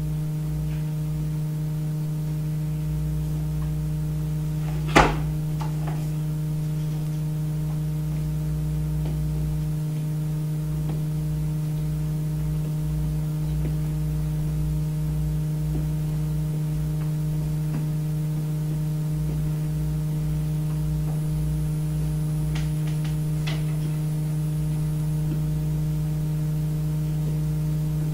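Steady low electrical hum with a deeper rumble beneath it; one sharp click about five seconds in, and a few faint ticks near the end.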